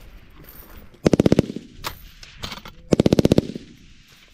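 7.62 mm FN MAG-type general-purpose machine gun firing two short bursts of about six or seven rounds each, roughly two seconds apart.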